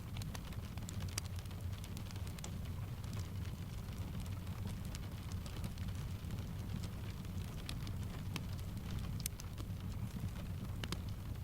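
Rain tapping on a window blended with a fireplace crackling: a steady low rumble with sharp, irregular crackles and taps scattered through it.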